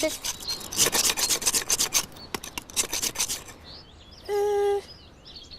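Fast, rhythmic rasping scrape, like a file or sandpaper worked back and forth, for about three seconds. This is the show's 'funny scraping noise'. A short, steady, pitched note follows a little past four seconds in.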